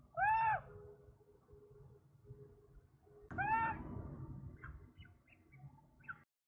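Two short arching animal calls about three seconds apart, each rising and falling in pitch, with faint chirps between and after them over a low background. The sound cuts off suddenly near the end.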